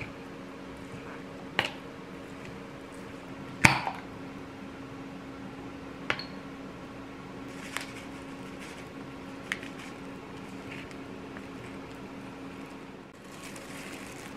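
Wooden spatula mixing and folding rice in a plastic bowl, with several sharp taps against the bowl, the loudest a little under four seconds in. A steady low hum runs underneath, and a rustle of plastic comes near the end.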